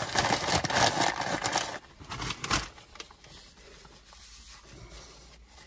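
Paper being crumpled and crinkled by hand for about two seconds, with a shorter burst of crinkling a little later.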